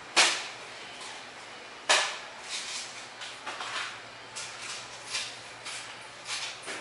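Two sharp knocks about two seconds apart, followed by a run of lighter clicks and clatter.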